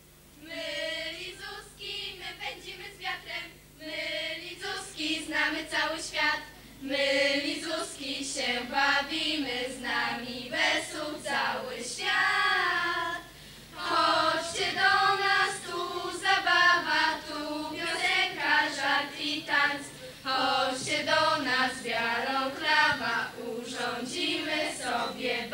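A group of young girls singing together without accompaniment, in short phrases with brief pauses between them.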